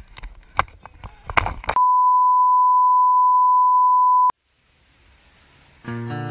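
A few sharp knocks and clatter, then a steady test-tone beep that holds at one pitch for about two and a half seconds and cuts off suddenly. It is the reference tone that goes with color test bars. Near the end, strummed guitar music starts.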